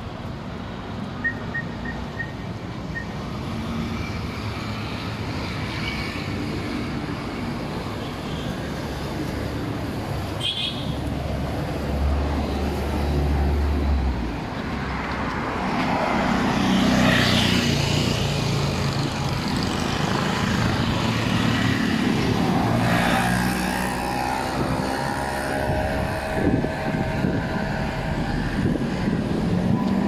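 Road traffic passing on a busy street: cars, motorbikes and three-wheelers going by steadily, with a car passing close and loudest about halfway through.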